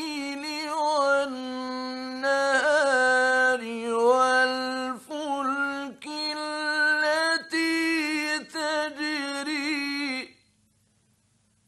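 A male Quran reciter chanting in the melodic mujawwad style. He sings long, ornamented phrases with wavering pitch runs, broken by short breath pauses, and stops about ten seconds in.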